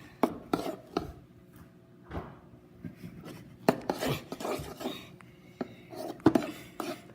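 A spoon knocking and scraping against a mixing bowl at irregular moments while stirring a thick mix of glue and shaving foam for slime.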